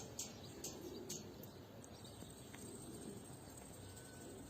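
Faint bird sounds around a pigeon loft: a few short, sharp high chirps in the first second, then a low, steady background.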